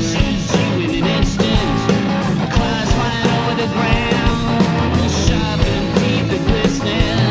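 Rock band playing live, with a drum kit and cymbals keeping a steady beat under bass and electric guitar.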